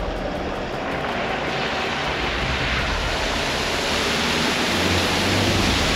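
A 4WD ute towing an off-road caravan driving through a flooded creek crossing: engine under throttle and muddy floodwater splashing and surging off the front, growing louder as it comes closer.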